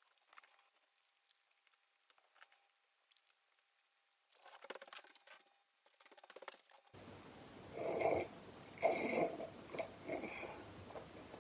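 Faint clicks and handling sounds, then a person sipping hot coffee from a mug: three short slurps about a second apart near the end.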